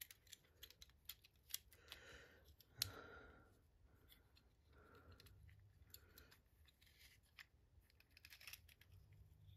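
Faint scattered clicks and rustling of hands handling wires and small metal parts while a light kit's wiring is connected to a ceiling fan's pull-chain switch.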